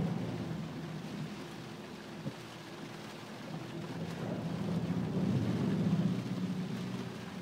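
Jeep Wrangler JK engine pulling through floodwater, heard from inside the cab, with water and rain washing against the body. The engine note swells again about five seconds in, and there is a single sharp knock just after two seconds.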